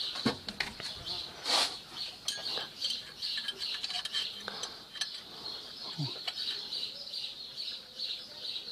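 Scattered light metallic clicks and clinks as hands handle the metal fittings around a clutch cable in the engine bay.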